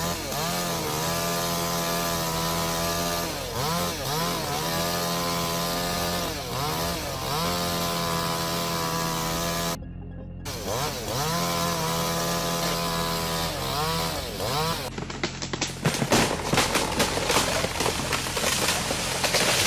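Chainsaw cutting wood, its engine pitch dropping as it bogs down under load and climbing again, over and over, with a brief break about ten seconds in. In the last few seconds a rapid run of sharp cracks and crashes of breaking wood.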